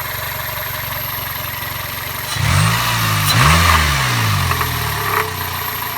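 1999 Toyota Corolla's 1.8-litre four-cylinder engine idling with a light knock-like noise. The owner traces the noise to a wobbling power steering pulley rather than the engine itself. About two seconds in, the engine note swells and its pitch rises and falls for a couple of seconds, then settles back to idle.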